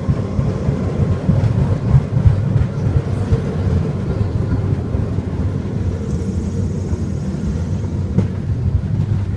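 Takachiho Amaterasu Railway tourist cart running along the track: a steady low rumble of wheels on rail and its engine, with scattered knocks from the track in the first few seconds.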